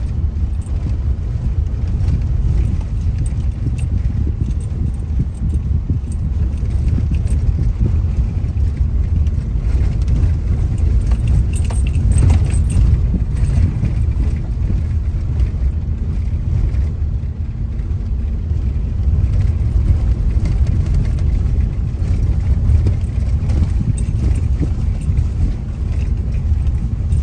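Car driving, heard from inside the cabin: a steady low rumble of tyres and engine on the road, with small clicks and rattles scattered through it.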